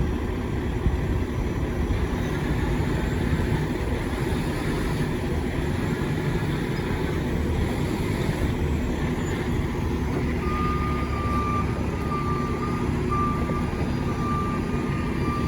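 Heavy-duty tow truck's diesel engine running steadily while it holds a loaded concrete mixer truck up on its lift. About ten seconds in, a backup-style alarm starts beeping at roughly two beeps a second.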